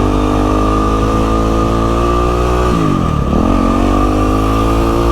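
Yamaha WR450F's 450 cc single-cylinder four-stroke engine running under throttle while riding, its pitch climbing slowly, dipping sharply about three seconds in, then climbing again.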